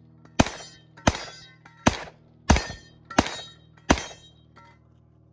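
Pistol shots fired in quick succession at steel popper targets, six shots about two-thirds of a second apart, each with a short ringing tail and the fainter clang of steel being hit.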